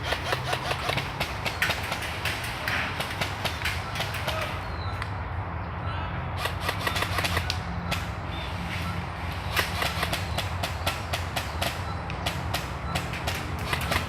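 Airsoft guns firing in bursts of rapid sharp clicks, over a steady low rumble.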